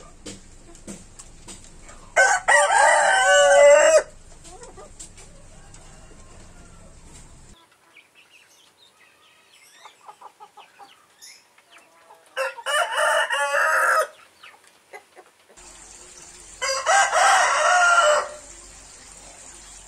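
Rooster crowing three times, each crow lasting about two seconds, with quiet gaps between them.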